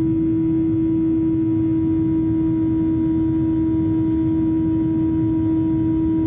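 Inside the cabin of a Boeing 737-800 climbing after takeoff: its CFM56-7B engines and the airflow make a steady drone, with one strong steady hum standing out over a low rumble.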